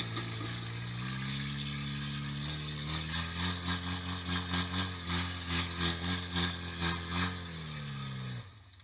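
Demolition derby car's engine running, heard from inside the stripped cabin. The revs rise about two and a half seconds in and surge up and down about three times a second, then the engine winds down and stops just before the end.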